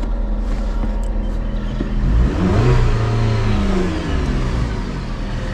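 Dodge Caliber 2.0-litre four-cylinder engine idling, blipped once to a brief rev about two seconds in, then settling back to idle.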